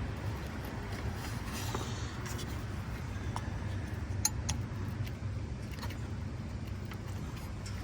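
Scattered light clicks and scrapes of hand work on the plastic coolant reservoir assembly and its hoses, over a steady low rumble.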